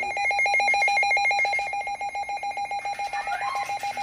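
Midland WR300 (version 8) weather radio's alert siren during its siren test, set to low: a fast electronic beeping tone pulsing evenly about a dozen times a second.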